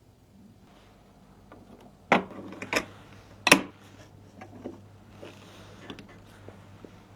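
A few sharp clicks and knocks of hard objects being handled, the loudest about two and three and a half seconds in, followed by lighter taps.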